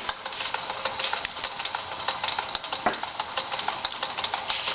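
Wilesco D22 toy steam engine running fast and smoothly, a quick even ticking clatter, at barely boiling, near-zero boiler pressure on a small butane flame.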